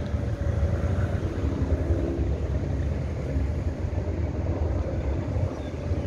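Steady low rumble of harbourside background noise, among moored boats.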